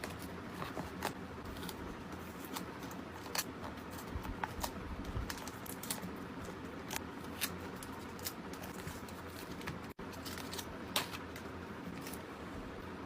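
Hands packing K-pop photocards: irregular small clicks, taps and crinkles of plastic card sleeves, paper and packaging being handled, over a steady hiss.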